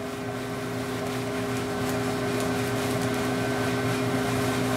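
Valenta 7 fluid-bed coffee roaster running: its loft-air blower hums steadily over a rush of air that keeps the beans lofting, getting a little louder over the first two seconds.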